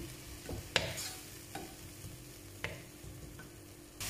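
Ground onion, ginger and garlic frying in oil in a pot, sizzling faintly while a spoon stirs it and clacks against the pot four times. The sizzle turns suddenly louder just before the end.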